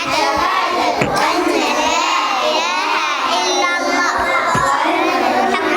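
Many young children's voices at once, loud and continuous, with a few low thumps.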